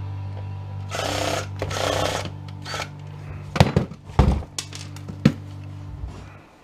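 Power driver backing screws out of a jump-starter pack's plastic case in two short bursts, then a few sharp knocks as parts and screws are handled, over a steady low hum that stops near the end.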